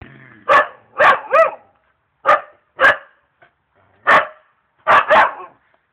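A dog barking, about eight sharp barks in short irregular groups of one or two, with brief pauses between them.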